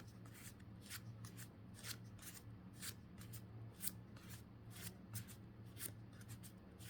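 Pokémon trading cards being flicked one by one from a freshly opened booster pack, a faint run of soft card slaps about three a second over a steady low hum.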